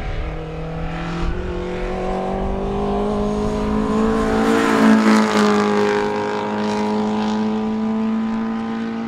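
Rally car engine running hard at high, fairly steady revs as the car passes, loudest about halfway through.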